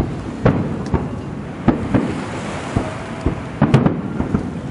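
Aerial firework shells bursting: a series of sharp booms, a second or so apart and then several in quick succession near the end, over a continuous low rumble.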